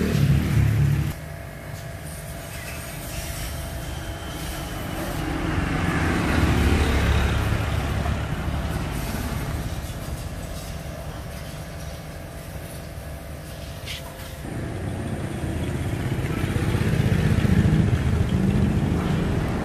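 Passing road traffic: engine noise from motor vehicles that swells and fades twice as they go by.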